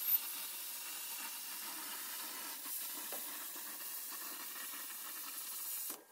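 Handheld plasma cutter cutting through steel sheet: a steady hiss from the arc and cutting air that stops abruptly near the end as the cut finishes.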